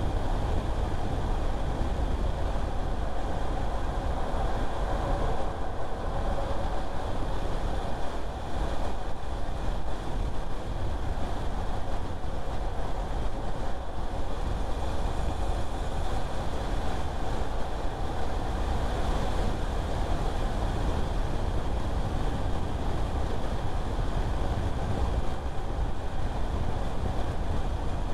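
Steady rumble of a car driving along: tyre and road noise with the engine underneath, unbroken throughout.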